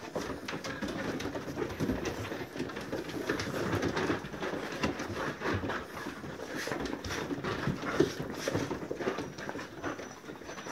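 Several excited dogs crowding close and panting, with scuffling and frequent small knocks from paws and bodies on wooden boards.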